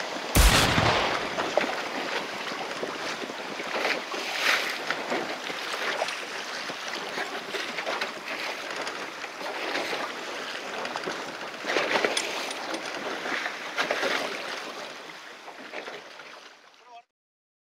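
Sea water splashing and sloshing against a boat's hull, with wind on the microphone. Several louder splashes come through, and the sound fades out shortly before the end.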